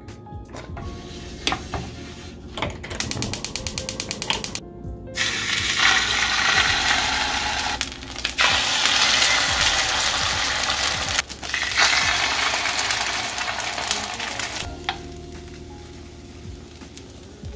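A rapid run of ticks for about a second and a half, then food sizzling loudly in hot oil in a pan for about ten seconds, dipping briefly twice, before it dies down. Background music with steady tones runs underneath.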